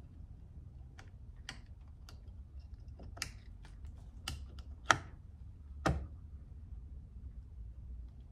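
Light, irregular clicks and taps of a small screwdriver and a brushed motor's end cap as the spring-loaded brushes are pushed apart and the cap is worked down over the armature. About eight separate clicks come over a low steady hum, the sharpest about five seconds in.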